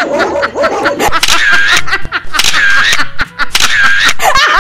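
People laughing loudly. The laughter comes in rapid choppy bursts at first, then in long loud peals roughly once a second.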